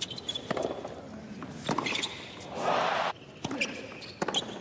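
Tennis ball on a hard court: a series of sharp knocks from the ball bouncing and being struck by rackets. A short rush of noise about two and a half seconds in cuts off suddenly.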